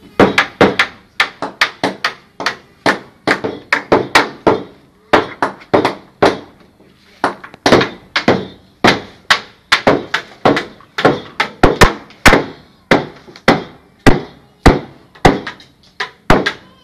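A hammer driving nails into a panel of round wooden poles: a long run of sharp blows, about two to three a second, with a few short pauses.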